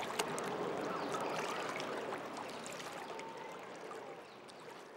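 River water lapping and trickling against a pebble shore, with small clicks and splashes, slowly fading out.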